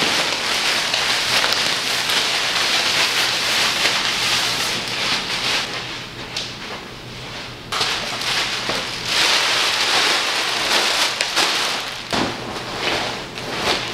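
Plastic packaging film crinkling and rustling as a dog bed is pulled out of its wrapping and the plastic is crumpled by hand. It goes quieter for a couple of seconds about halfway through, then the crinkling picks up again.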